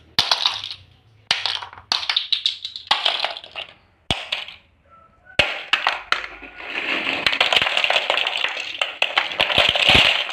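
Hard plastic toy building bricks clattering as they are dropped onto a heap of bricks: a string of short spills, then a longer continuous pour from about five seconds in, loudest near the end.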